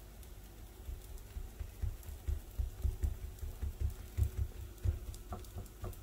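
A hand patting and pressing semolina harsha dough flat in a frying pan: a run of soft, dull thumps, about three to four a second, starting about a second in.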